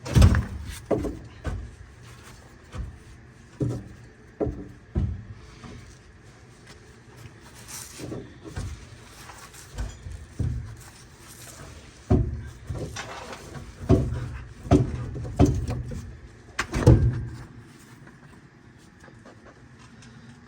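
Irregular heavy clunks and knocks from a Torsilastic bus suspension part being shifted and worked loose, catching against the surrounding parts. The loudest knock comes right at the start, and the knocks come thickest about two-thirds of the way through.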